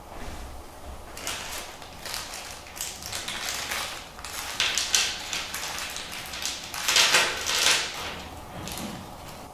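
Small clear plastic parts bag crinkling in the hands as it is handled and opened, with small metal screws and standoffs rattling out onto a cutting mat; the crackling comes in uneven bursts, loudest about three quarters of the way through.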